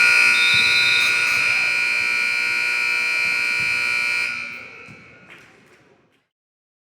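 Gym scoreboard buzzer sounding one long, loud blast of about four seconds, cutting off and ringing away in the hall's echo.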